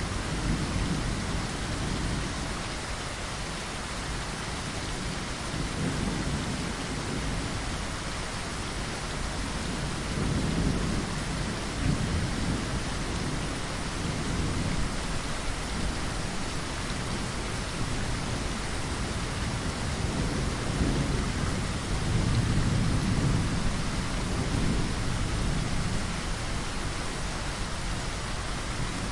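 Steady rain falling against a window, with low rumbles of thunder swelling and fading several times underneath.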